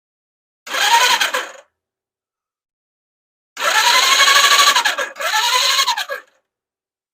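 Electric starter motor of a 1977 Suzuki GS550 cranking the four-cylinder engine in three short bursts, each whir rising then falling in pitch. The engine turns over without firing: there is no spark at the first cylinder.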